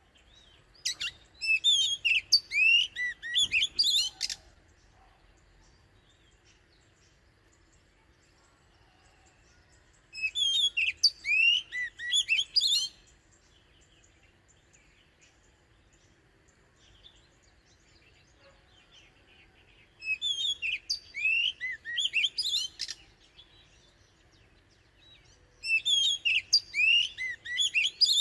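Oriental magpie-robin singing: four bouts of quick, varied whistled phrases, each about three seconds long, separated by quiet gaps of several seconds.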